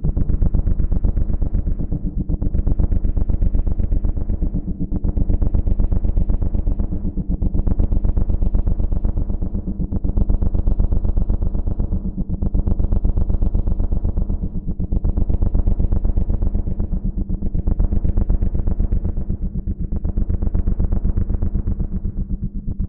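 Low synthesized drone: a steady, deep hum with many overtones, fluttering rapidly and swelling and fading about every two and a half seconds.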